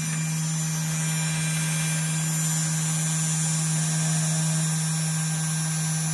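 Spindle motor of a 3018 desktop CNC router running steadily while milling copper isolation tracks into a copper-clad PCB blank: a steady low hum with a faint high whine above it.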